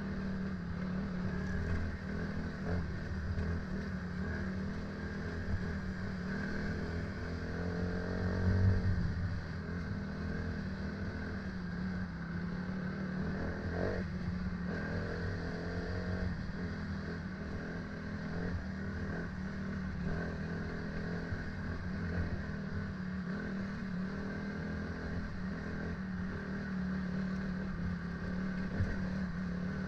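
A motor vehicle's engine running steadily for the whole stretch, its pitch wavering slightly up and down.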